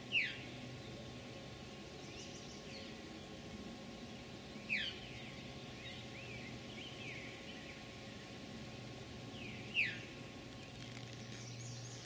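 Veery giving its short, downslurred "veer" call three times, about five seconds apart, with fainter birdsong in the background.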